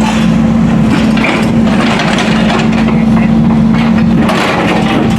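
Heavy road-works machinery running at a steady engine pitch, with irregular clattering over it.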